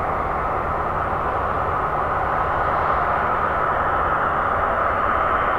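Boeing 767's twin jet engines running as the airliner rolls along the runway after landing, a steady, even roar.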